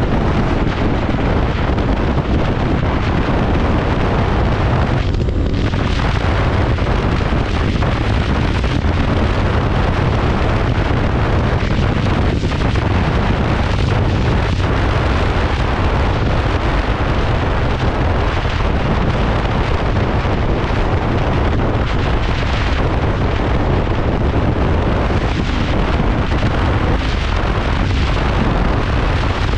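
Loud, steady wind buffeting on the microphone as a Royal Enfield Continental GT 650 is ridden at high speed, its 648 cc parallel-twin engine running beneath the wind noise.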